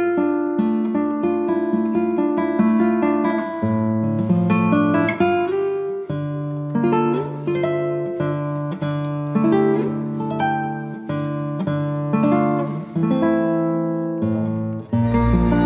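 Background music: acoustic guitar picking a steady melody of plucked notes, with a fuller, sustained sound coming in about a second before the end.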